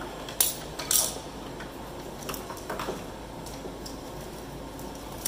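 Wiring harness being handled and pulled free inside a combine's sheet-metal console: two sharp metallic clicks about half a second and a second in, then lighter ticks and rustling of wire against metal.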